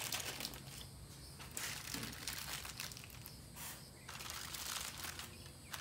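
Aluminium foil crinkling in several short rustles as it is folded up around fish fillets.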